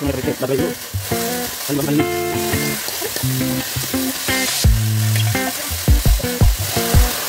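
Food sizzling in a large hot wok while it is stirred, under background music with steady bass notes and a beat that thumps in the second half.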